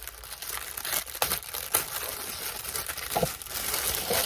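Plastic packaging crinkling and rattling as it is handled, with a steady rustle broken by sharp crackles.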